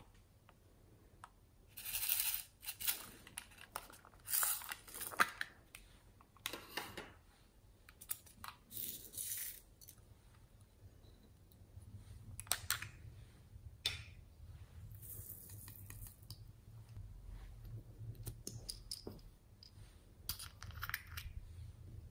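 Small plastic toy cases and a small container handled by hand: irregular clicks, taps and short rattles, with a few brief rustling bursts.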